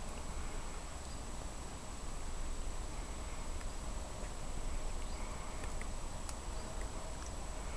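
Outdoor garden ambience: a steady low rumble with a thin constant high whine over it, and a few faint, short high chirps scattered through.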